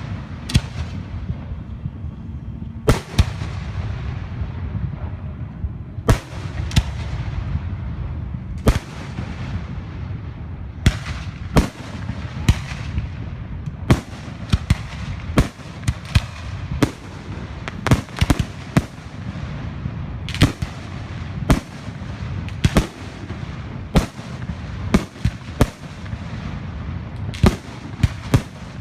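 Fireworks exploding in a run of sharp bangs, each trailing off in an echo. The bangs come a few seconds apart at first, then thicken to one or two a second after about ten seconds, over a continuous low rumble.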